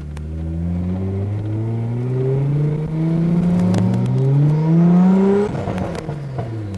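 Twin-turbo 3.3 V6 accelerating hard through two gears: it rises in pitch, shifts and drops about three seconds in, climbs again, then falls off near the end when the throttle is lifted.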